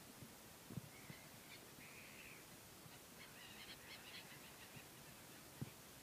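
Gulls calling faintly: a short call about a second in, then a quick run of chattering notes around the middle. Two soft low thumps, one near the start and one near the end, stand out as the loudest sounds.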